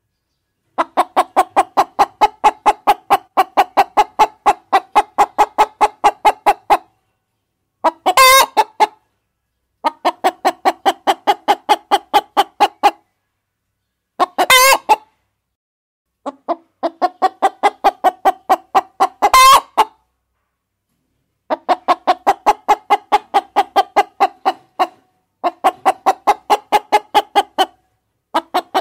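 Hens clucking in long runs of rapid, evenly spaced clucks, about four or five a second, broken by short pauses. A few short, louder and shriller calls cut in now and then.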